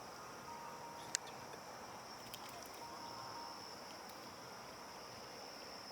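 Steady high-pitched insect chorus, with one sharp click about a second in.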